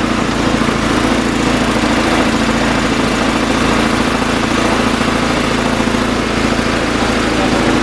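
Small pull-start gasoline engine driving a portable air compressor, running steadily at an even speed.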